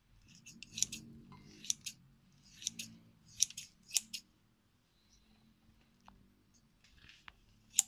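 Kitchen scissors snipping through soft roasted eggplant: a run of sharp snips about once a second, then a few fainter clicks near the end.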